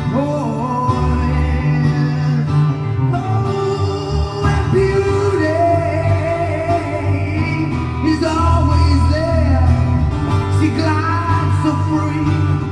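A song with guitar and a sung melody line, played from a vinyl record on a turntable.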